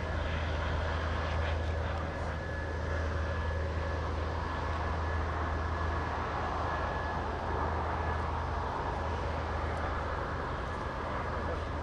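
Twin Aviadvigatel PD-14 turbofan engines of an Irkut MC-21-310 airliner at taxi power: a steady jet engine rumble with a thin, high, even whine.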